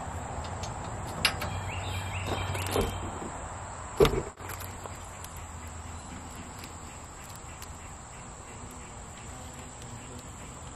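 Small steel hand tools clicking and knocking against the hex socket screws of a steel loader tooth bar: a few light clicks, with one sharper knock about four seconds in, over a steady outdoor background hum.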